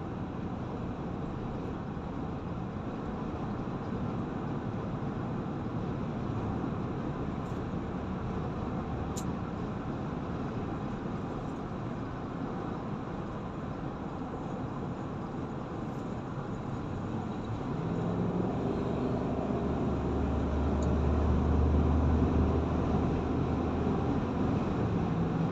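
Steady tyre, road and engine noise inside a car cabin at highway speed. About two-thirds of the way through it grows louder, with a deeper hum.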